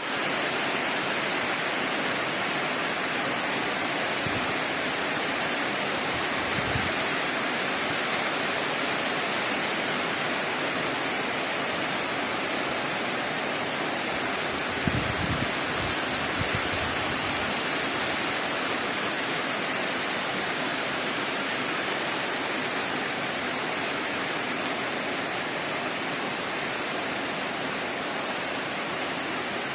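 Steady heavy rain, an even hiss with no separate drops standing out. A few brief low thumps come through, mostly about halfway.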